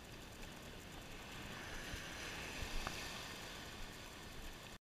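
Small waves washing against the boulders of a rock jetty, a steady hiss of moving water with a few low bumps near the middle.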